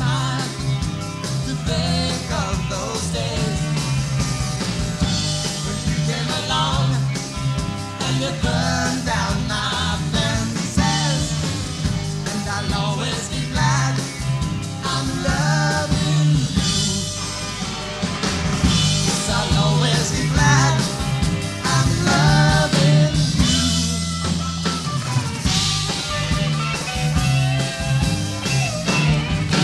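Rock band playing live, with electric guitars, bass guitar and drum kit, and a pitched line that bends up and down over a steady bass.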